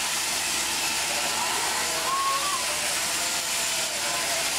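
Steady hissing whirr of an electric sheep-shearing handpiece running as merino sheep are shorn, with a sheep bleating faintly about two seconds in.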